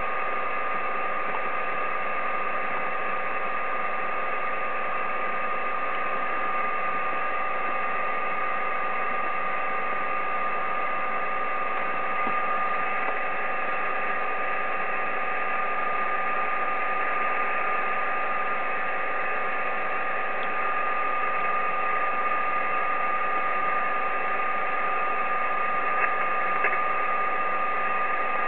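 Icom IC-7300 transceiver's speaker hissing with 10-meter band noise on upper sideband while no station is talking, with a steady high whistle and fainter lower steady tones through the hiss. Two faint clicks come near the end.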